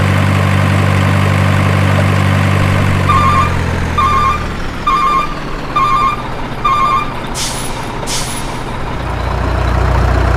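Heavy truck sound effect: the engine idles steadily, then gives five reversing beeps about a second apart, two short air-brake hisses, and a low engine rumble again near the end.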